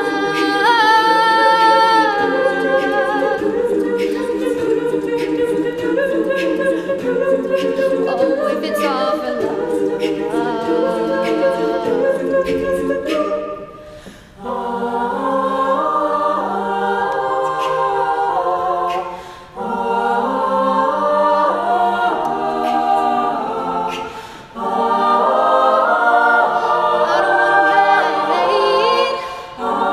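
All-female a cappella group singing in close harmony: a solo voice over sustained backing chords. In the second half the voices stop short a few times, breaking off for a moment and coming back in about every five seconds.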